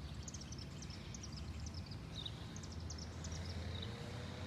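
Outdoor ambience: a steady low rumble with small birds chirping in two quick, high-pitched runs.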